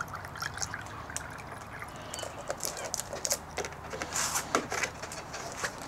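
Distilled water being poured into a small cleaning cup, coming in irregular short spurts, with light clicks and knocks of handling.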